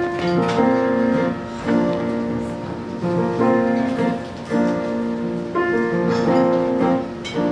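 Piano playing the slow introduction to a show tune: held chords, a new one struck about once a second.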